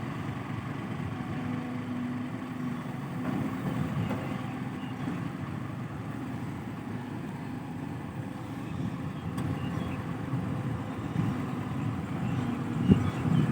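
Heavy diesel engine running steadily at low revs, getting louder near the end with a sharp knock.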